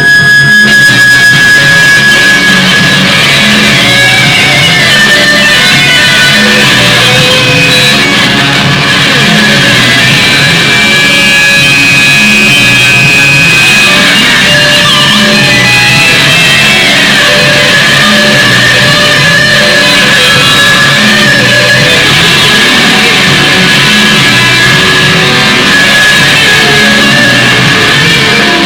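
Loud, continuous rock music led by guitar.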